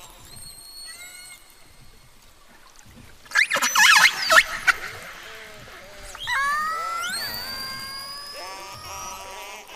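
Killer whales (orcas) calling underwater: a mix of whistles and pulsed calls. The loudest part is a dense tangle of rapid, sweeping calls from about three to five seconds in, followed by long calls that rise and then hold their pitch.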